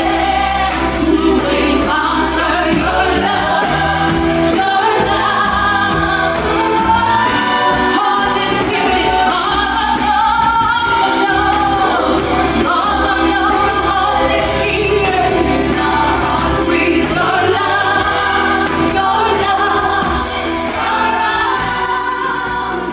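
Congregational worship music: voices singing a gospel song together over a band with bass and drums, fading out near the end.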